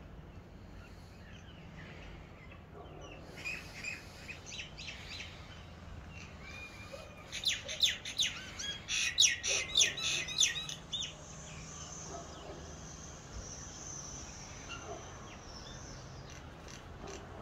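Small birds chirping, with a burst of loud, rapid chirps about seven to eleven seconds in.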